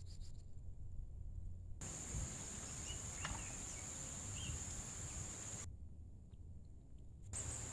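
Insects trilling in a steady high-pitched chorus, cutting out abruptly about two seconds before the end and coming back just before it, over a low rumble.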